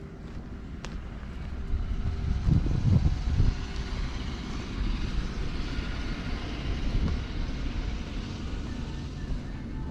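Wind buffeting the microphone in an irregular low rumble that gusts up about two seconds in and is strongest about three seconds in, then stays steady.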